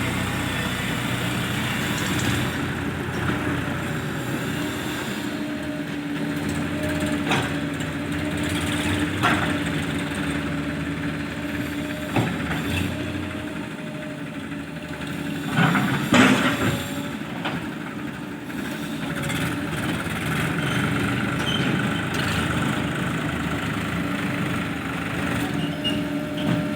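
A diesel engine on heavy machinery running steadily at a constant speed, with a few sharp knocks or clanks along the way. The loudest cluster of knocks comes about sixteen seconds in.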